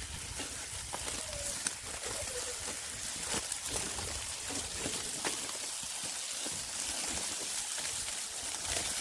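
Meat skewers sizzling on foil over a charcoal grill: a steady hiss scattered with small crackles and pops.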